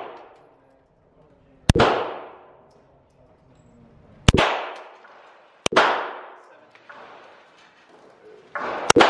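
Semi-automatic pistol fired in slow, single shots one to three seconds apart, the last two close together. Each shot rings out in the reverberation of an indoor range.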